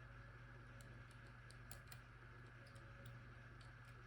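Faint, irregular clicks of a disc-detainer pick turning the rotating discs inside an Abloy Classic padlock while feeling for the gates, over a steady low hum.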